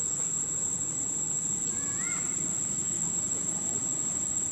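Steady high-pitched insect drone over a low rumbling outdoor background, with one short rising-and-falling squeak about two seconds in.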